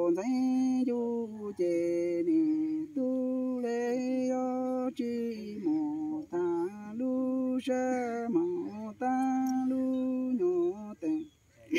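A single unaccompanied voice chanting Hmong sung poetry in long, drawn-out held notes, phrase after phrase, with pitch slides into and out of each phrase; it stops shortly before the end.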